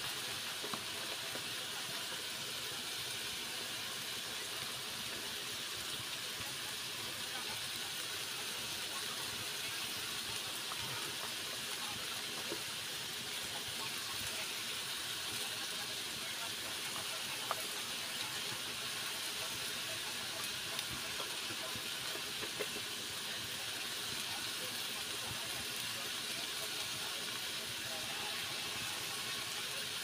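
Vegetables sizzling in an iron wok over a wood fire: a steady hiss, with a few faint clicks.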